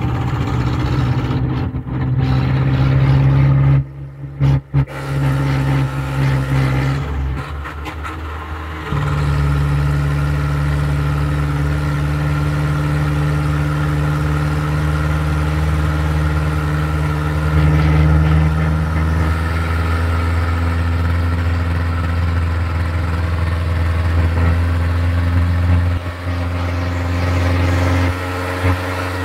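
The engine of the vehicle being ridden, running steadily under way on a winding road, heard from on board. The engine sound drops away briefly about four seconds in and again around eight seconds in, then settles at a slightly different pitch.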